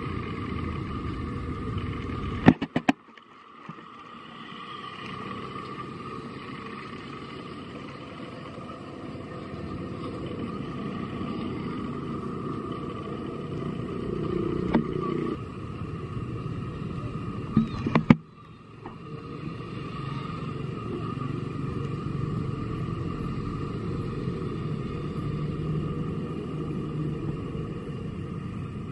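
Steady outdoor background rumble with no clear single source. Sharp clicks and brief dropouts about two and a half seconds and eighteen seconds in.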